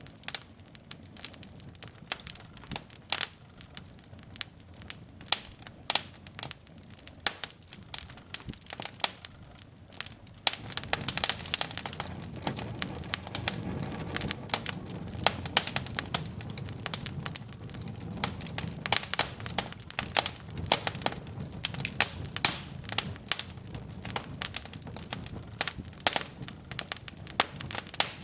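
Wood logs burning in a fireplace, crackling with many sharp irregular pops. A low flame rumble grows stronger about ten seconds in.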